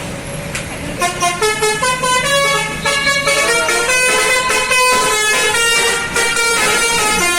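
Basuri telolet bus horn, a multi-tone musical horn, playing a quick tune of short notes that step up and down in pitch. The tune starts about a second in, over a low rumble.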